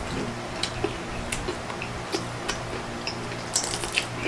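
Eating at the table: forks clicking and scraping on plates, with scattered light ticks, plus mouth noises of chewing; a longer rustling, slurp-like burst comes near the end.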